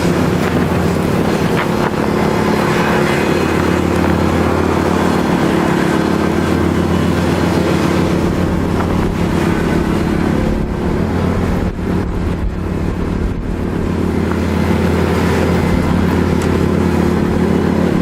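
Kubota L5740 tractor's diesel engine running steadily, with a brief dip in level about twelve seconds in.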